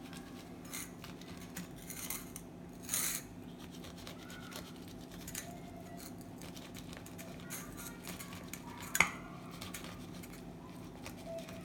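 Kitchen knife cutting into the rind of a citron: short, scattered scraping rasps of the blade through the peel, with one sharp click about nine seconds in, the loudest moment. A steady low hum runs underneath.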